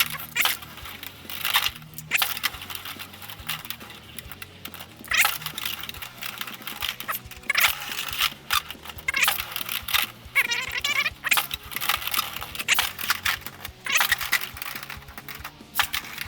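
Beyblade X spinning tops clashing and skittering in a plastic stadium: irregular sharp clacks and scraping rattles, over quiet background music.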